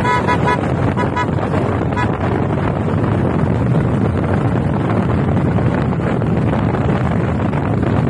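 Wind buffeting the microphone on a moving motorcycle, over steady engine and road noise. A horn gives several short high beeps in the first two seconds: three quick ones at the start, two about a second in, and one more at two seconds.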